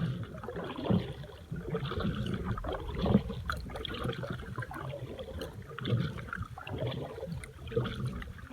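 Kayak paddle strokes in the water, with splashing and water gurgling around the boat; the strokes come through as a few louder swashes at uneven intervals.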